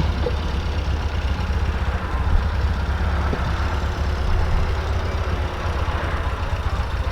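Classic car engine running steadily at low revs, a low even rumble with no revving.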